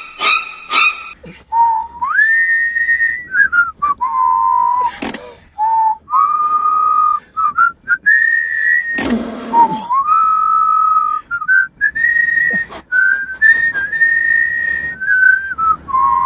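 Whistling a slow tune, one clear note at a time, held notes stepping up and down. A short burst of noise breaks in about nine seconds in.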